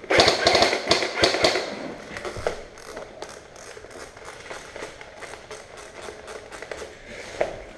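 Sharp clacks and clicks from an airsoft rifle being fired and handled. A cluster of loud clacks comes in the first second and a half, then a steady run of lighter clicks, about three or four a second.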